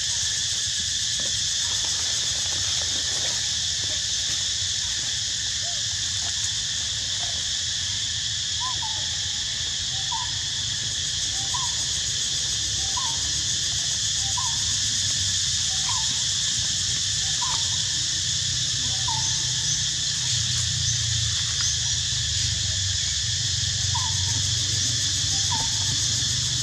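Steady high-pitched insect chorus with a low rumble underneath. From about a third of the way in, a short falling call repeats roughly every second and a half for about ten seconds, then comes twice more near the end.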